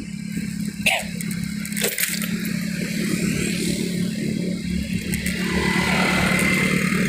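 Motor scooter engine running steadily while riding, with wind and road noise on the microphone and a couple of sharp clicks about one and two seconds in. From about five and a half seconds the sound swells as another motor scooter passes close alongside.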